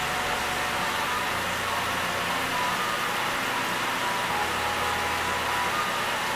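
Chicken and chopped vegetables cooking in a pot over heat, a steady sizzling hiss, with a low hum that comes and goes.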